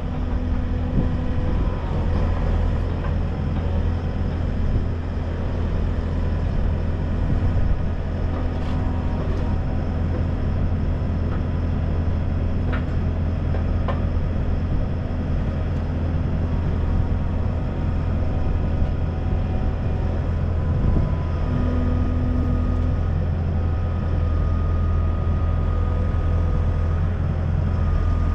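A large engine running at a steady speed: an even, deep drone with no revving.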